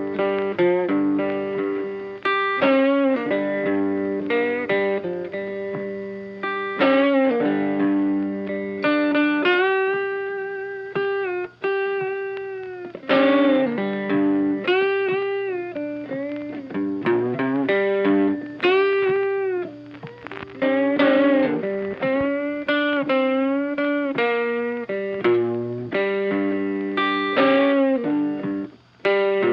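Funky background music led by a plucked electric guitar with effects and bent notes.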